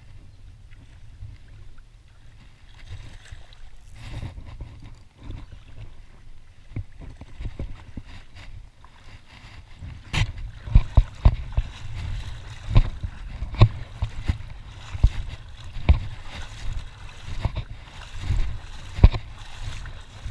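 Wind rumbling on the microphone over lapping, choppy water. From about ten seconds in comes a run of sharp knocks and splashes, several a second, as the angler works in the shallows with the landing net.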